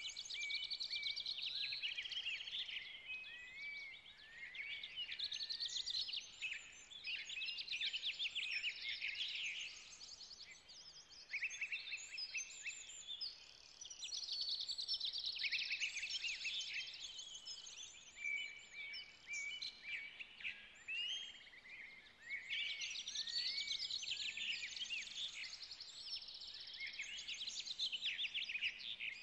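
Wild songbirds singing in a steady chorus of chirps, quick trills and short whistles.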